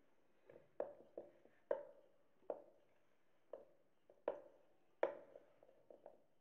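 Cauliflower florets being mixed by hand into a thick gram-flour batter in a stainless steel bowl: irregular soft knocks against the bowl, one or two a second, each with a short ring.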